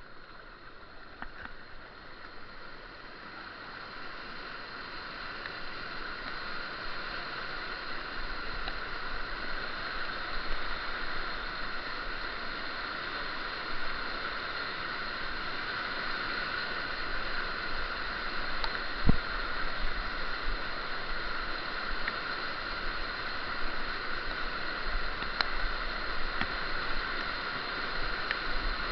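Rushing water of a brook, growing louder over the first several seconds and then running steadily, with a single knock about two-thirds of the way through.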